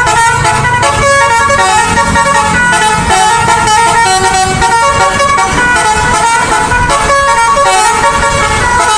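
A bus's basuri musical horn playing a quick melody of short notes that step up and down in pitch, over the low rumble of the bus.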